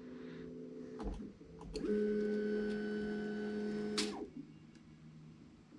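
Stepper motors of an Elegoo Neptune 3 MAX 3D printer whining steadily as the printer homes its axes. There is a click about a second in. A louder whine runs from about two seconds to four seconds and stops with a click, and a fainter whine follows.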